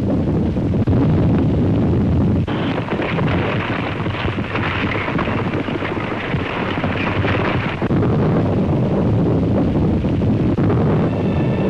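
Paricutin volcano erupting: a continuous low rumble of the crater blasting out lava and cinders, with a harsher, higher rushing noise on top from about two and a half to eight seconds in. Music comes in just before the end.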